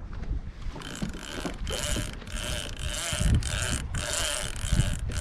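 A small mechanism whirring with a steady whine, in runs of under a second broken by short pauses, over wind buffeting the microphone.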